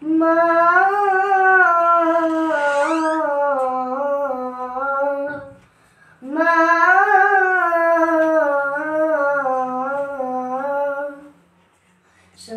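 A boy's unaccompanied voice singing a Bengali Islamic gojol: two long, drawn-out, wavering phrases with no clear words, about five seconds each, with a short breath between them.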